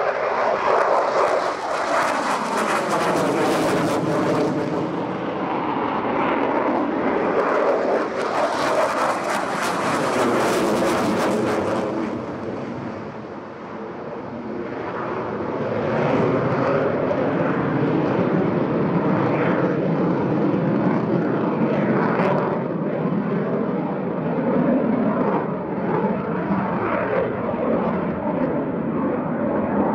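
Eurofighter Typhoon's twin EJ200 turbofan engines running at high thrust as the fighter climbs away after takeoff: a loud, sustained jet roar with falling sweeps in pitch as it passes. The roar dips about halfway through, then swells again.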